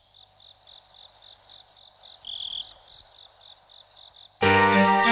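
Crickets chirping in a steady pulsing rhythm, faint and high. Near the end, loud band music cuts in suddenly.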